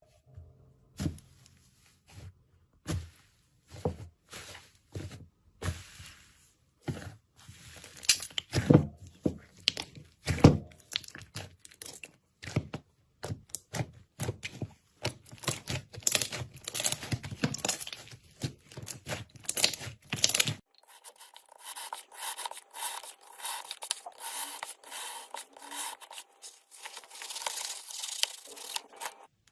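Slime being squeezed, stretched and pressed by hand, giving irregular crackling and sticky popping sounds. About two-thirds of the way through the sound changes to a thinner, denser crackle.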